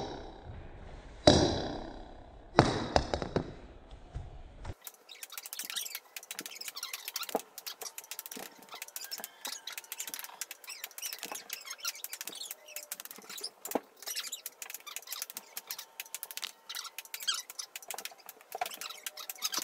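Ping-pong ball shots on a wooden floor: two loud sharp knocks, about a second in and again about a second and a half later, each ringing briefly in the room. They are followed by a long run of faint, rapid clicking.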